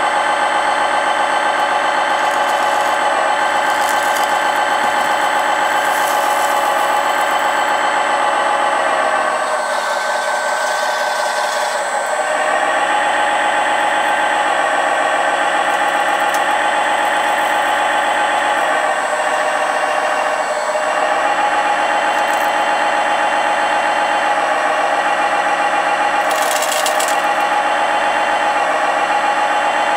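1/14 scale Lesu ET30H RC hydraulic wheeled excavator running steadily, its hydraulic pump giving a constant whine that dips briefly twice as the load on the boom changes. Near the end gravel rattles as the bucket tips it into a tipper truck.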